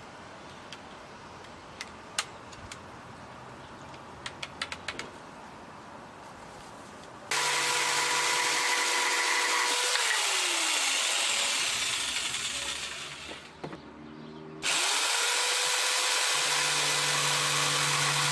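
A few light clicks over low room tone, then an electric jigsaw starts suddenly and runs at a steady pitch while cutting. It winds down with a falling pitch and stops, then runs again at full speed near the end.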